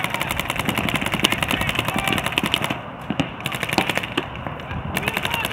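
Paintball markers firing in fast strings of many shots a second, breaking off briefly about three seconds in and again just past four seconds.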